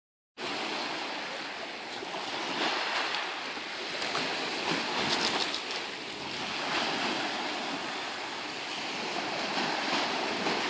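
Small sea waves breaking and washing up a shingle beach: a steady surf wash that swells and eases every few seconds. It starts after a brief moment of silence.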